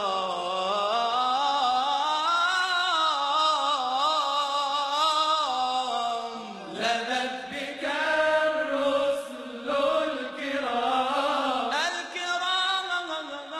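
A male munshid chanting an Arabic religious supplication (ibtihal) in a melismatic style, holding long notes and sliding slowly up and down between them, with a brief break a little past halfway.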